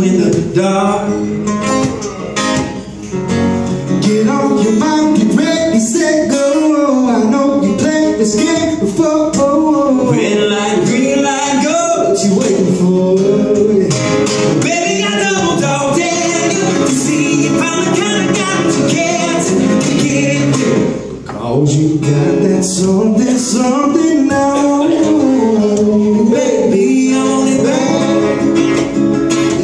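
Live acoustic performance: two acoustic guitars played while a man sings.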